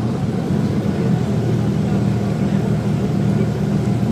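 Volvo B7TL double-decker bus's diesel engine running steadily under way, heard from on board as a continuous low drone.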